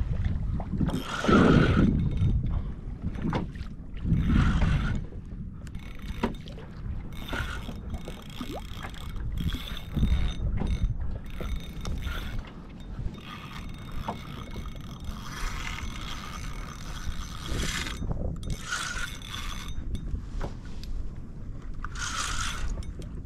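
Wind buffeting the microphone and water slapping a fishing kayak's hull, with a fishing reel's mechanism whirring and clicking at times as a hooked fish is fought on a bent rod. The wind gusts hardest about a second and a half and four and a half seconds in.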